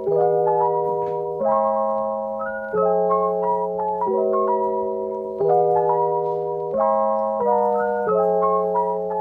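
Background music: soft held chords that change about every second and a half, with a light melody of short notes on top.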